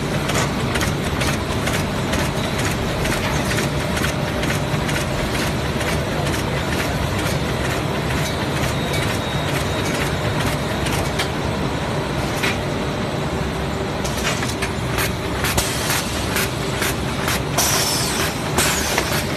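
Plastic bag cutting machine running: a steady mechanical din with a quick, regular train of clicks from its repeating cutting strokes.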